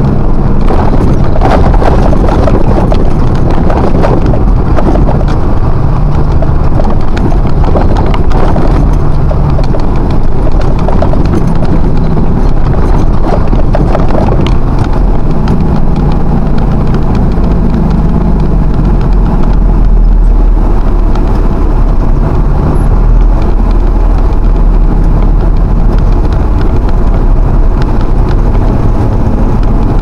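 Loud, steady truck-cab noise on the move: the engine running with a low drone that shifts in pitch, and rattles and knocks from the cab, most frequent in the first half.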